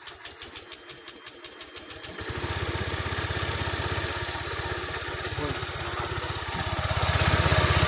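Honda Vario scooter's single-cylinder engine cranked on the starter, catching about two seconds in and then running at a fast idle, getting a little louder near the end. The engine now starts after the repair for its no-start fault.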